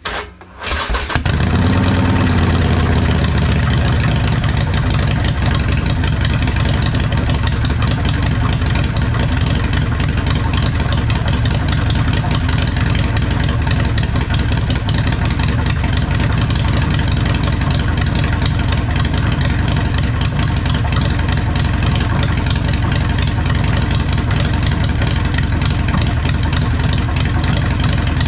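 Harley-Davidson Sportster V-twin, bored out to 1275 cc with a Hammer big-bore kit, starts about a second in and then runs steadily at idle. This is a 40-second break-in heat cycle to seat the new pistons in the new cylinders.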